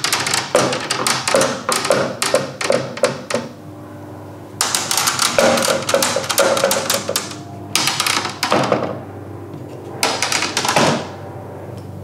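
Long metal bar clamps clattering and clinking against each other and their wooden rack as they are handled on the wall, in four bursts of rapid clicks with a brief metallic ring.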